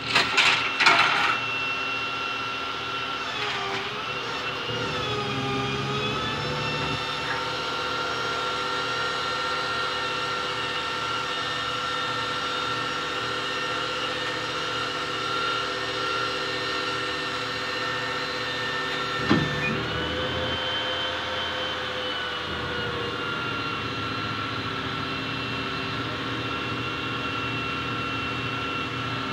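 Flatbed tow truck's engine running steadily with a whine. Its pitch drops a few seconds in and goes back up about two-thirds of the way through.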